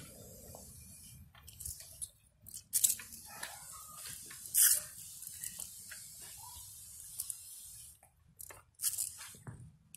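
Hand spray bottle squirting engine degreaser onto engine parts: several short spray bursts, the loudest about halfway through, over a faint steady hiss.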